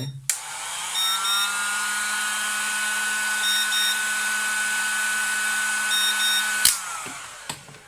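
Electric heat gun running on a portable power station's inverter: its fan motor spins up in a rising whine, then runs steadily with a rush of air, and is switched off with a click near the end, winding down. Over it, the power station's low-battery alarm sounds short double beeps about every two and a half seconds, signalling the battery is nearly empty.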